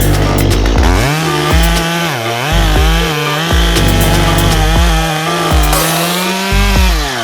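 Chainsaw running at full throttle and cutting into wood, its pitch dipping and recovering several times as the chain bogs under load, over music with a heavy, regular bass beat.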